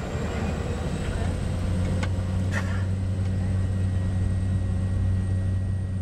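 Light aircraft's engine and propeller droning steadily, heard from inside the cabin as the plane rolls along the runway, with a couple of brief clicks about two seconds in.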